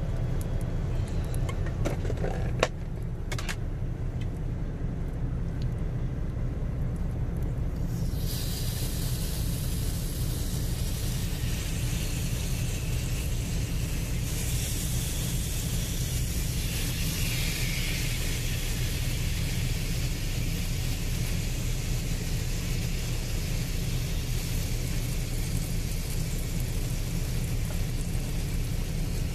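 Steady low rumble of the semi truck's idling diesel engine, with a few clicks and knocks at the start. From about eight seconds in, a high hiss joins it: raw chicken sizzling as it is laid on a hot electric contact grill.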